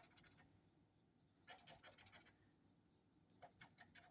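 Coin scraping the latex coating off a lottery scratch-off ticket: faint, quick scratching strokes in three short spells.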